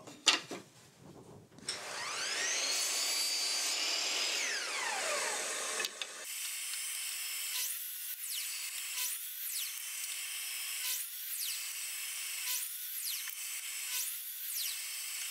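Bosch mitre saw motor spinning up with a rising whine and winding down again, then a quick run of short spin-ups and wind-downs about every second and a half as it chops angled ends on pine strips.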